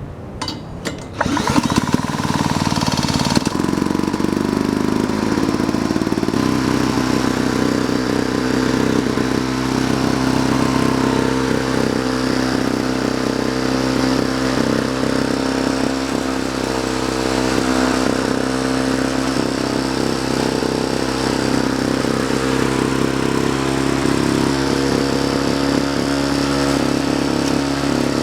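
Antique Genoa lawnmower's Power Products two-stroke engine, cranked with electric power, catching after about a second, running unevenly for a few seconds, then settling into a steady run.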